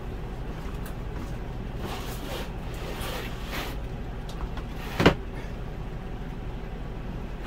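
Dometic RM2652 RV refrigerator being lifted and pushed into its cabinet opening: several soft scrapes and rubs, then one sharp knock about five seconds in. A steady low hum runs underneath.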